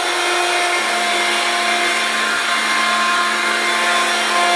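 Hoover Platinum Collection Linx 18-volt cordless stick vacuum running steadily, a motor whine over a rush of air; a lower hum joins about a second in.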